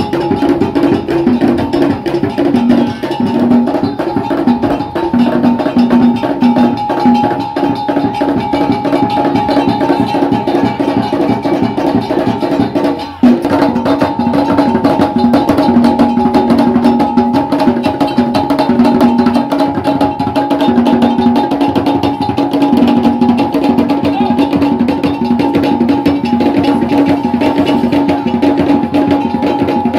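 Ga Kpele music: drums and other percussion played in a dense, fast, steady rhythm, with pitched parts running over it. It breaks off for a moment about 13 seconds in, then carries on.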